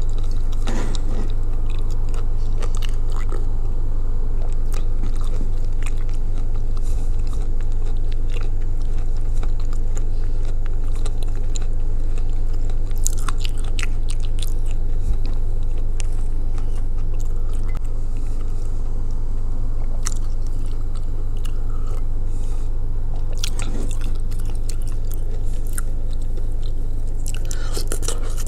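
Close-up chewing and biting of edible clay (Ural clay soaked in blue Uzbek clay), with scattered short wet crunches and clicks that come thickest near the end. A steady low hum runs underneath.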